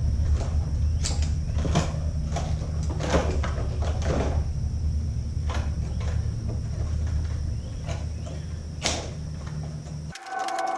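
Shears snipping at hair and thread wrapped around a Dyson upright vacuum's brush roll: about seven separate sharp snips and handling clicks over a steady low hum. Just before the end the hum cuts off suddenly and a steady pitched tone takes over.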